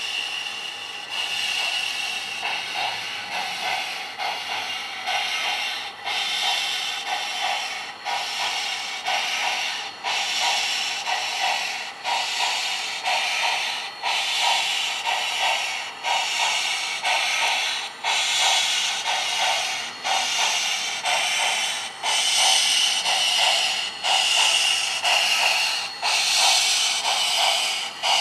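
Steam sound from an HO-scale model steam locomotive: a steady hiss with even, repeating chuffs, growing louder toward the end.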